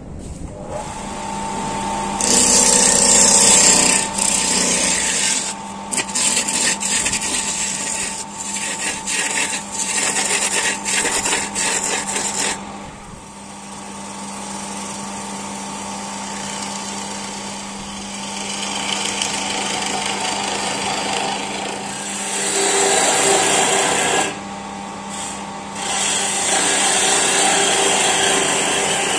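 Wood lathe running with a steady motor hum while a hand-held turning tool cuts into the spinning wooden blank. The cutting hiss comes in long stretches that stop and start, loudest in the first half and again near the end.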